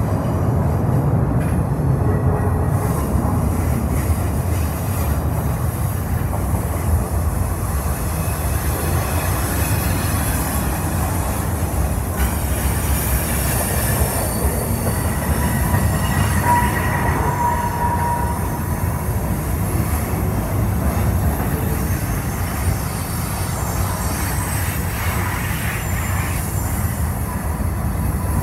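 Freight train cars (autoracks and lumber-loaded centerbeam flatcars) rolling past close by: a steady rumble of steel wheels on the rails. A brief thin wheel squeal comes in about halfway through.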